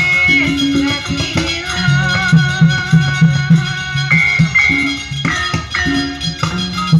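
Music with a steady beat: a repeating bass line, rattle-like percussion and held melody notes.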